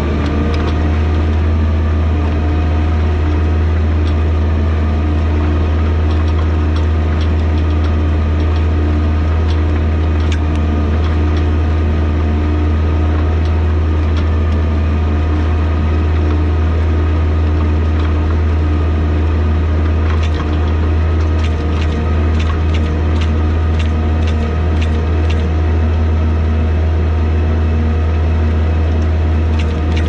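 Tracked skid steer's diesel engine running steadily as the machine pushes its grader blade through wet soil, a strong low drone with a steady hum above it. From about two-thirds of the way through, short clicks and knocks rattle over the engine.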